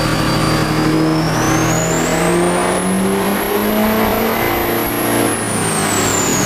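Duramax 6.6-litre turbo-diesel V8 running hard under load on a chassis dyno pull. A high whine climbs steeply, holds, and falls away near the end while the engine note rises slightly.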